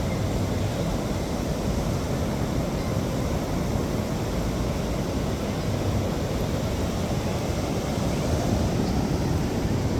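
Steady wind rumbling on the microphone over the even rush of ocean surf.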